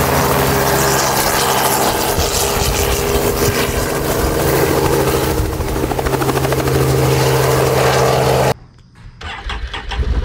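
Helicopter engine and rotor running close by with a fast, steady blade beat as it lifts off. About eight and a half seconds in, the sound cuts off abruptly, leaving a much quieter stretch with a few faint clicks.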